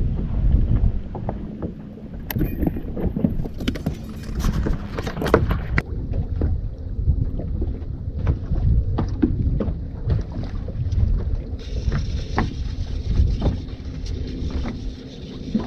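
Wind buffeting the microphone and water slapping against a small fishing boat's hull, with scattered irregular knocks and clicks.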